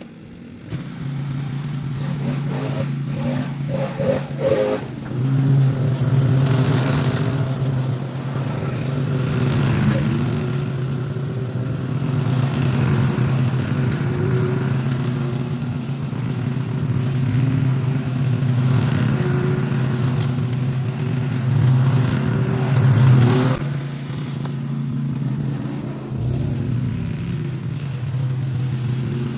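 Small gasoline engine running steadily at high speed, with small swells in level and pitch. It cuts in abruptly about half a second in.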